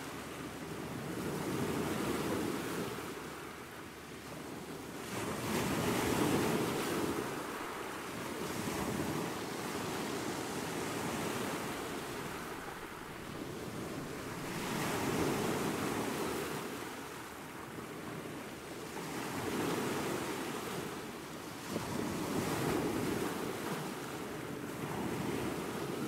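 Small ocean waves breaking and washing up a sandy beach, swelling and fading every few seconds.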